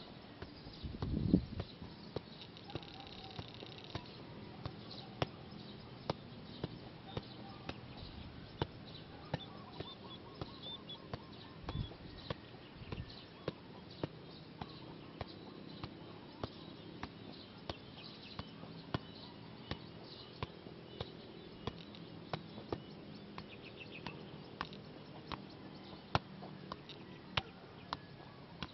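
A leather football being juggled on foot and thigh: a steady run of sharp taps, about two a second. Faint bird chirping sits behind it, and there is a brief low rumble about a second in.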